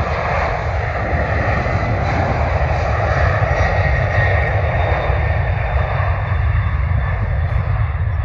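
Boeing 767-300 freighter's twin jet engines at takeoff thrust on its takeoff roll: a steady loud rush with a thin whine above it.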